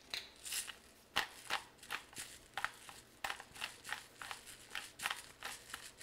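Hand-twisted spice grinder grinding seasoning, a rhythmic gritty crunching of about three strokes a second as the mill is turned back and forth.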